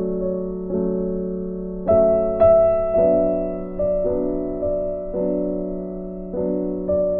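Soft background piano music: gentle chords struck roughly once a second, each ringing and fading before the next.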